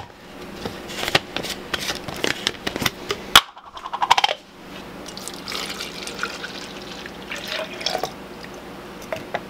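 A run of quick clicks and knocks as a plastic shaker bottle is handled and set on a stone counter, then liquid pouring into the bottle and filling it for the last few seconds.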